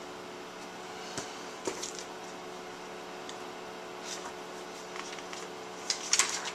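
Steady electrical hum of running computer equipment, made of several constant tones, with a few faint clicks and rustles scattered through and a small cluster of them near the end.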